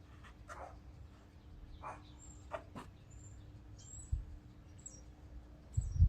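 Scattered light clicks and taps of hand work as a replacement carburetor and its linkage are fitted to a riding mower engine, with faint bird chirps in the background. A low thump comes near the end.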